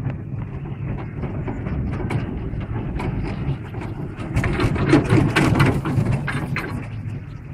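Chairlift ride with a steady low rumble, and a louder rattling clatter in the second half as the chair passes a support tower.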